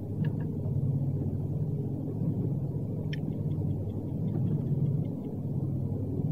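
Twin-engine piston aircraft droning steadily in flight. The engines are the radials of a Grumman Goose amphibian. A faint, quick ticking comes in about three seconds in and lasts a couple of seconds, fitting a pocket watch.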